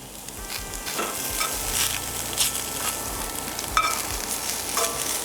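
Food sizzling as it fries in a pan while being stirred, with a few sharp metallic clinks of a utensil against the pan.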